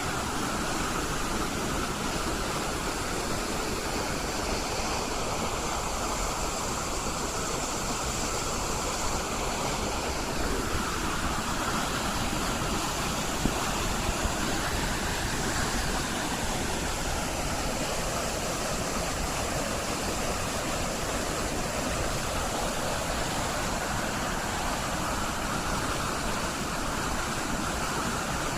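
Rushing whitewater running steadily, an even, unbroken rush of noise.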